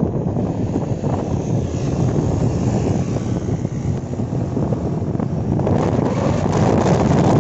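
Wind rushing over the microphone of a camera on a moving scooter, over the steady hum of the engine and tyres on the road; it grows a little louder near the end.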